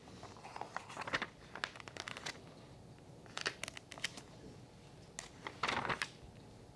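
Paper pages of a textbook being handled and turned, crinkly rustles coming in irregular bursts, the loudest a little before the end.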